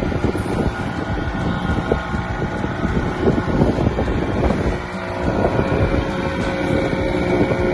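A small wooden motorboat's engine running steadily under way, with wind buffeting the microphone.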